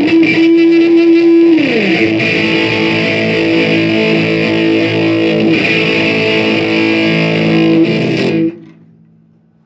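Band music led by a distorted electric guitar holding long sustained notes, with a downward slide in pitch near the start. The music stops abruptly about eight and a half seconds in, leaving only faint background.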